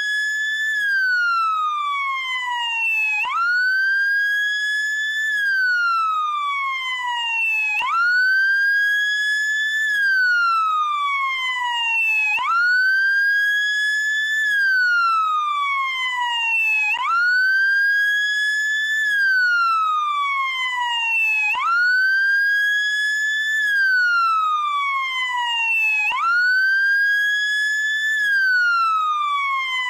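Electronic wail siren of a SAMU motorcycle ambulance, cycling continuously: each cycle sweeps up quickly, holds briefly at the top, then glides slowly down, repeating about every four and a half seconds.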